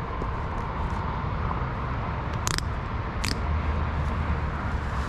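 Beta Xtrainer 300's two-stroke single-cylinder engine idling with a steady low rumble. Two sharp clicks come a little under a second apart around the middle, and after them the low rumble grows louder.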